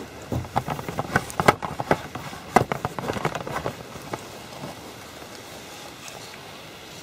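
Close handling noise: a quick, irregular run of clicks, knocks and crackles for about four seconds, fading out before the end and leaving a steady faint background.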